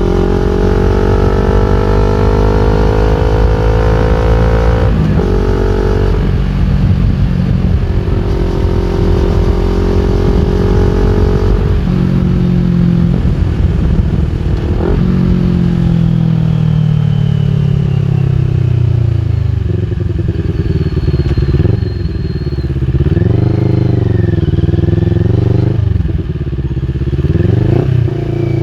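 CFMOTO NK400 parallel-twin engine through an Akrapovic full exhaust, accelerating with rising pitch and brief breaks at gear changes about five and twelve seconds in. It then slows with falling pitch and gives a couple of short revs near the end.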